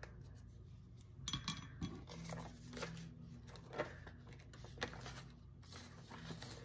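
Rustling and crinkling of a plastic-feel polymer banknote and a paper envelope being handled, with a few sharper crackles as the bill is folded and tucked into the envelope.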